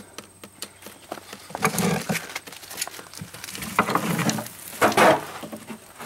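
Valves on a sprinkler system's backflow preventer being opened by hand to drain the shut-off line: a run of small metal clicks and several short hissing spurts.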